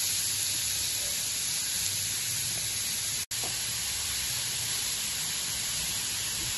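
Grated raw papaya frying in hot oil in a nonstick pan, a steady sizzling hiss as it is stirred with a wooden spatula. The sound cuts out for an instant a little past three seconds in.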